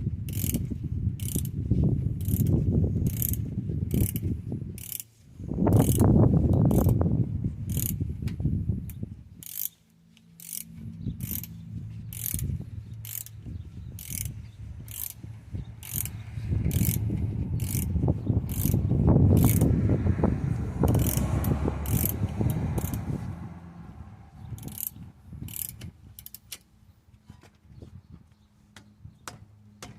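Socket ratchet wrench clicking in a steady series, about two clicks a second with short pauses, as the brake caliper bolts are tightened. A low rumble rises and falls underneath, loudest about six seconds in and again around nineteen seconds.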